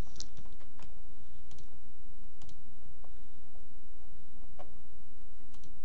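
A few separate computer keyboard keystrokes, about half a dozen spread unevenly over several seconds, over a steady background hiss and low hum.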